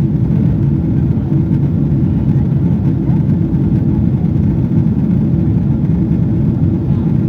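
Steady cabin noise inside a Boeing 777-300ER climbing after takeoff: the low, even drone of its GE90 engines and the airflow over the fuselage.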